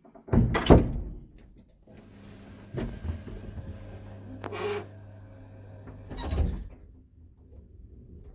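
Automatic folding stainless steel lift car doors closing, the door operator running with a steady low hum for about five seconds. Heavy breathing close to the microphone comes in loud gusts about every two seconds over it, the loudest just after the start.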